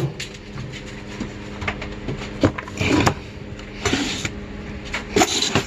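Small metal hardware clinking and rattling in a few short, irregular clatters as parts in a drawer are handled and sorted, over a steady low electrical hum.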